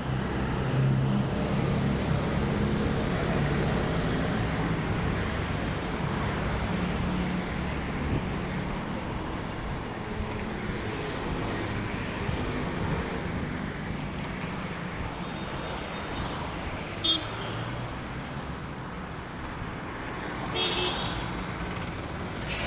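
City street traffic: vehicle engines running and passing in a steady rumble, with a nearby engine's low drone loudest in the first few seconds. Two short horn toots sound, one about seventeen seconds in and another near the end.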